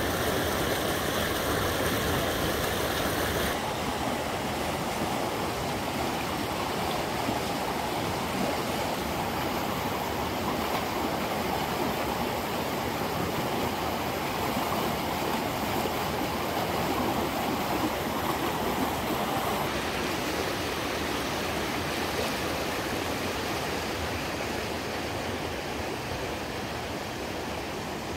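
River rapids rushing, a steady, dense sound of running water. Its tone changes abruptly a few seconds in, losing some hiss, and again about two-thirds of the way through.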